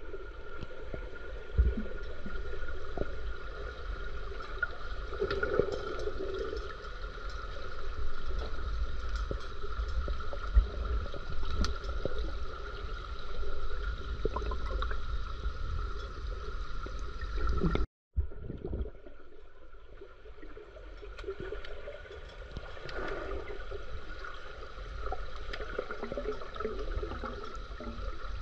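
Swimming-pool water heard underwater: muffled gurgling and sloshing with a steady high hum. The sound cuts out for a moment about 18 seconds in.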